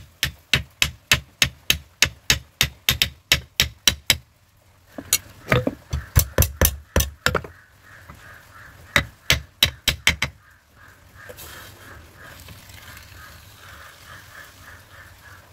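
Rapid sharp knocks, about four a second, as the red-hot tang of a curved kappa knife is driven home into its wooden handle. The knocking stops about four seconds in, then returns in two short bursts before dying away.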